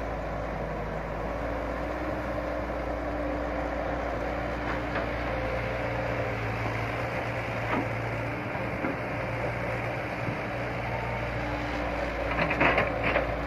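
Excavator's diesel engine running steadily, with a cluster of sharp knocks near the end.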